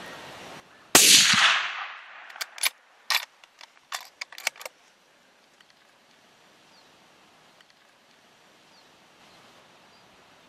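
A single loud gunshot from a hunting gun about a second in, fading away over about a second. It is followed by a quick run of about seven sharp clicks and knocks, then faint outdoor background.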